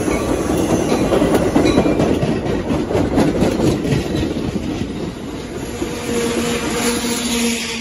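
Commuter train rolling past on the tracks, its wheels clattering over rail joints. The sound is loudest in the first half and eases off after, and a steady low tone comes in near the end.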